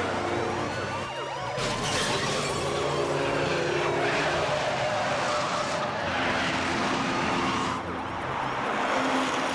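Police car sirens wailing over the engines of a heavy truck and cars at speed.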